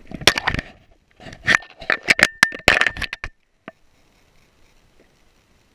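Dog's collar tags and harness gear jangling and clattering in quick irregular bunches as the dog moves, with a brief metallic ring; it dies away about three seconds in.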